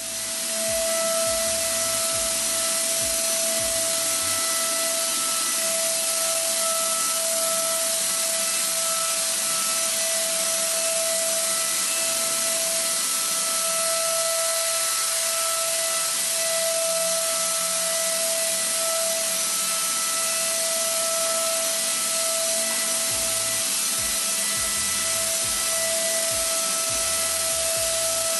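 Handheld electric disinfectant fogger running steadily, its motor giving a constant whine over the hiss of the spray mist.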